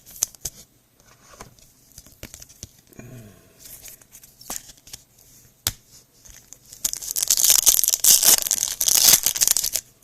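Trading-card pack wrapper being torn open and crinkled, loud over the last three seconds, after several seconds of scattered light clicks and rustles from handling cards.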